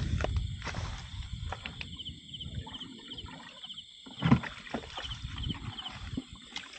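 A freshly caught carp thrashing and splashing as it is handled, with scattered knocks and one loud knock about four seconds in. Short high chirps repeat faintly in the background.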